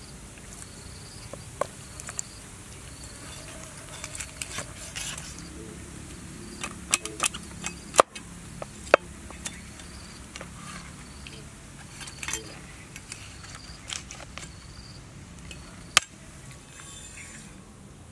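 A cleaver scraping scales off a large fish and striking a wooden chopping block: scattered sharp knocks with scraping between them, a few of them much louder chops. A high insect chirp repeats evenly, a little under a second apart, in the background.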